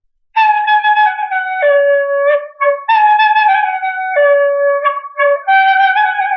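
A solo melody played on a single wind-like voice: held notes stepping down in pitch, in a short phrase that begins again twice, starting about a third of a second in.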